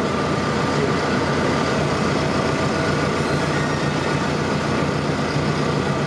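Fendt 310 Vario tractor's diesel engine running steadily at low, even revs, heard close up.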